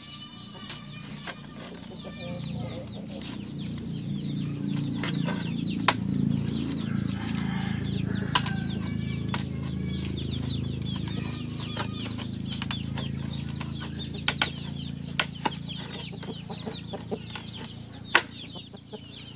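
Chickens clucking, with rustling and sharp clicks and taps scattered throughout; the loudest taps come about six, eight and eighteen seconds in.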